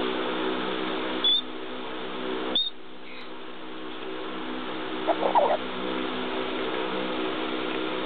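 Congo African grey parrot giving two short, high whistles, about one and two and a half seconds in, then a quick cluster of soft, lower chirps a little past the middle.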